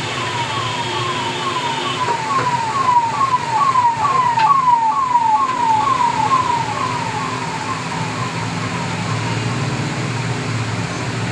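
Electronic siren-like warning tone: a short falling chirp repeated about two and a half times a second. It grows louder toward the middle, then fades away, as if passing by.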